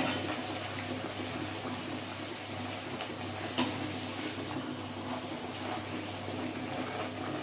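A wheat-flour puri deep-frying in hot oil in a kadhai: a steady sizzle and bubbling. One sharp tap of the perforated metal skimmer against the pan comes about three and a half seconds in.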